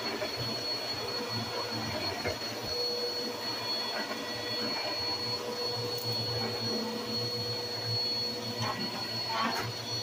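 Upright bagless vacuum cleaner running steadily while it is pushed over carpet, its motor giving a constant high whine over a low hum. A few short scuffs come near the end.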